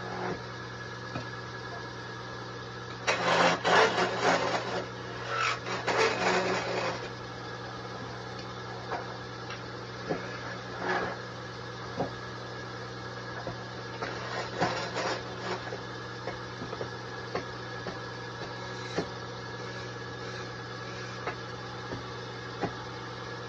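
Electric wood lathe running with a steady motor hum while a hand-held turning tool cuts a spinning wooden spindle. Loud scraping cuts come in a cluster from about three to seven seconds in, with shorter scrapes around eleven and fifteen seconds.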